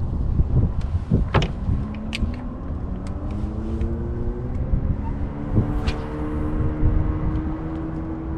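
A motor hums with a tone that slowly rises in pitch for several seconds, then stops abruptly. Underneath is a low rumble of wind on the microphone, with a few sharp clicks.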